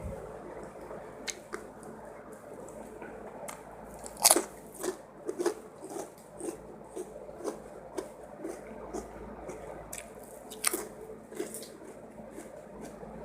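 A person chewing fried rice close to the microphone, with wet mouth clicks and crunchy bites at about two chews a second. There is a sharper, louder bite about four seconds in and another near the end.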